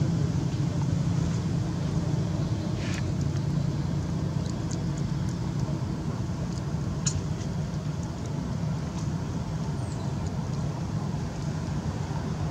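A steady low rumble of outdoor background noise, like distant motor traffic, with a few brief faint clicks.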